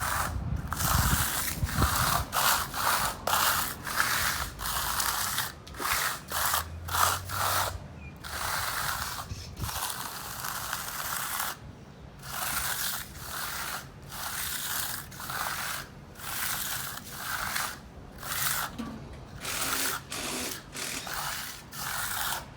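A coarse broom dragged in repeated strokes across fresh, still-wet concrete, a rough scraping sweep about once a second, laying a non-slip broom finish on the slab.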